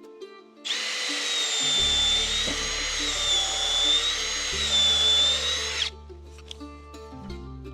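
An electric power tool runs for about five seconds with a high whine that wavers slightly in pitch, then cuts off, over background music with plucked strings and a bass line.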